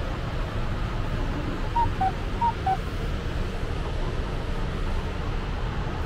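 Steady machine or air noise, with four short electronic beeps alternating high and low about two seconds in.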